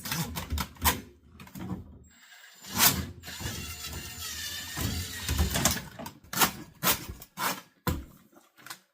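Ryobi 18V drain auger with its steel cable being worked by hand in a sink drain: a string of sharp mechanical clicks and knocks, with a longer scraping stretch in the middle.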